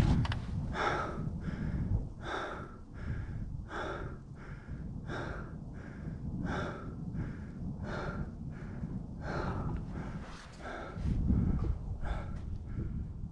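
A hiker's heavy, rhythmic breathing from the effort of climbing, in and out about every second and a half, over a low rumble that swells near the end.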